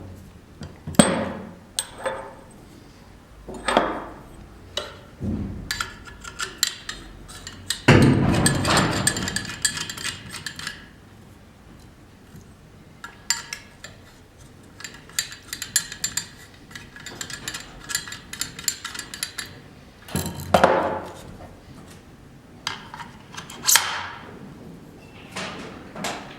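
Camera shoulder-rig parts being handled and fitted together: irregular clicks, clinks and knocks, with a denser scraping rattle about eight seconds in and a few heavier clunks.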